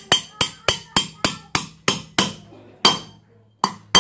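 Hammer striking a steel drift punch to tap the rocker arm shaft into a Yamaha Mio cylinder head. Quick, sharp metallic taps come about four a second, then slow to a few spaced strikes in the last second and a half.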